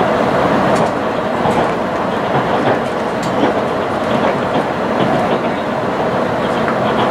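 Running noise inside a passenger car of an HC85 series hybrid diesel railcar moving at speed: a steady rolling noise of wheels on rail, with a scatter of faint clicks from the track.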